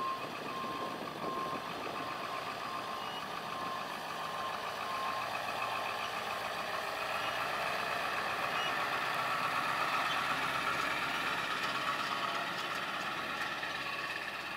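2002 Ford F350 Super Duty's 7.3L V8 turbo diesel engine running, growing louder toward the middle and easing back near the end. A repeating electronic beep, about one and a half a second, sounds over it for the first five seconds.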